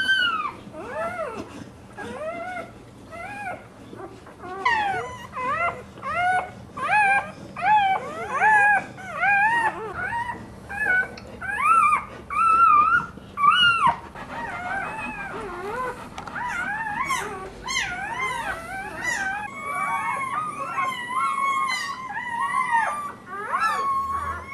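Newborn American Staffordshire Terrier (pit bull) puppies crying. First comes a run of short, high squealing cries, one or two a second. From about halfway the cries turn into softer, overlapping whimpers.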